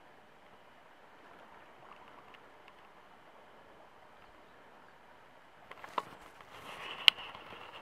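Faint, steady wash of calm sea water lapping against shoreline rocks. About six seconds in it grows louder, and a few sharp clicks and knocks come in, the loudest near the end.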